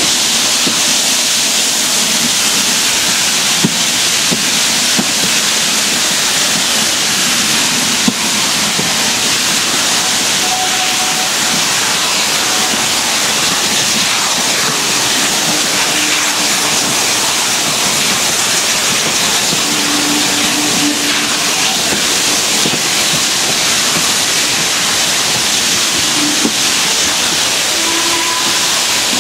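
Several steam locomotives working hard at the head of a train: a loud, steady mix of exhaust and hissing steam, heard from a carriage window along with the rush of the moving train.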